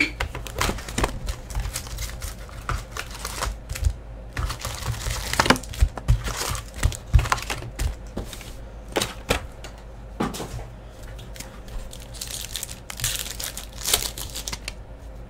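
A cardboard trading-card hobby box being opened and its foil-wrapped card packs handled: irregular taps, clicks and rustles of cardboard and wrappers. Near the end a foil pack crinkles in the hands as it is worked open.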